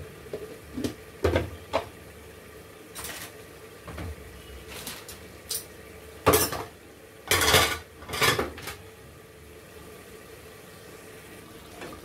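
Kitchen utensils and cookware clinking and knocking: a string of short, sharp clatters over the first nine seconds or so, the loudest about seven seconds in, then only a faint steady background.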